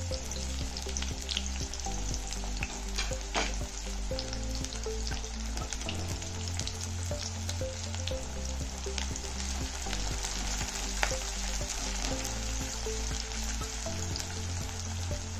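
Sliced onions sizzling and crackling as they fry in hot oil in a kadai, with scattered sharper pops. Near the end a spatula stirs them.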